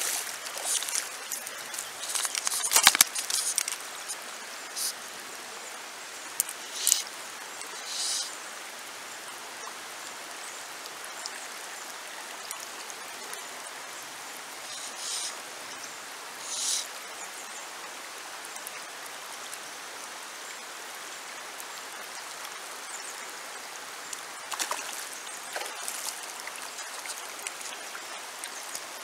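Shallow river running over stones, a steady rush of water. Several brief louder bursts break through it, the loudest a knock about three seconds in.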